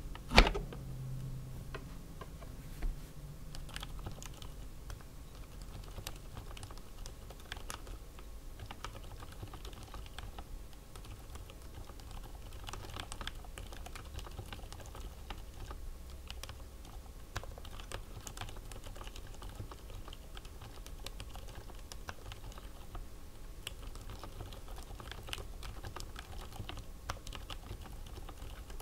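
Typing on a RAMA WORKS M60-A 60% mechanical keyboard fitted with Aliaz Silent Tactile 60g switches: a steady run of keystrokes. A single loud thump comes about half a second in, as the keyboard is set down on the desk mat.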